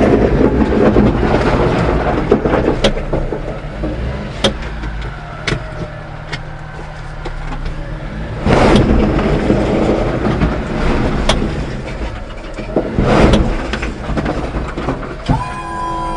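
Suzuki Carry mini dump truck's engine running the hydraulic dump while the bed tips up, with rocks and dirt sliding off the bed in several knocks and rushing swells. A steady whine starts just before the end.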